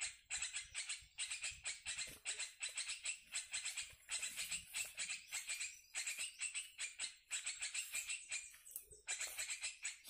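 Chattering of sooty-headed bulbuls (kutilang) played back from a recording as a bird lure: a dense run of fast, high notes, many a second, in bursts broken by brief pauses.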